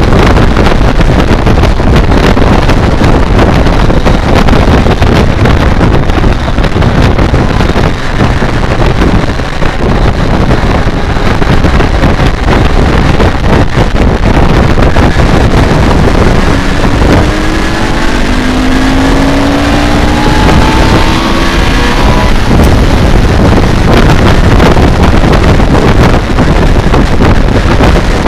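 Heavy wind rush on the microphone over a motorcycle's inline-four engine running at road speed. Around two-thirds of the way through, an engine note climbs in pitch for several seconds as it accelerates.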